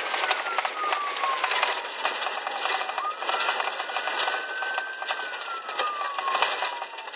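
Police car siren on a slow wail, its pitch gliding down, jumping back up about three seconds in and falling again. Under it, a dense clatter and rattling from the patrol car as it drives.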